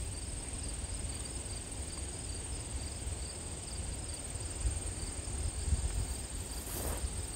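Insects trilling steadily in a high, continuous tone, with a second, pulsing insect call a little lower. A low rumble sits underneath, and a few footsteps come near the end.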